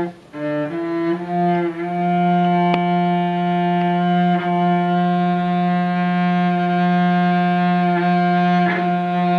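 Cello bowed: a few short notes, then a long held F3 with a few bow changes. F3 is the note where this cello's wolf tone lies.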